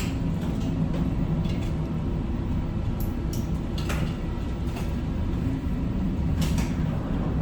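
Steady low rumble of a ship under way, with a few short knocks and rattles.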